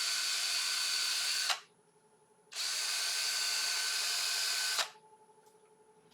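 Power drill sanding the nub off the end of a small turned wooden handle. It runs steadily at speed, stops about a second and a half in, starts again a second later, and stops again near the end.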